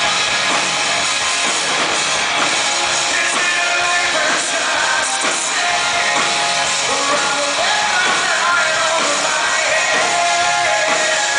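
Live rock band playing loudly: distorted electric guitars, bass and drums, with a male lead vocal, heard over the PA from within the audience.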